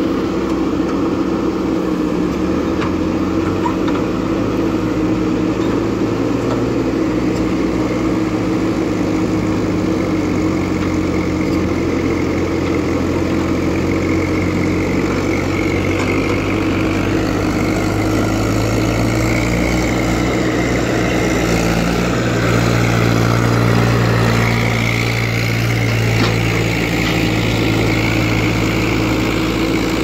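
Diesel engine of a JCB 3DX backhoe loader running steadily under hydraulic load as the backhoe arm digs gravel. Its pitch shifts as the arm works, and it gets somewhat louder a little past two-thirds of the way through.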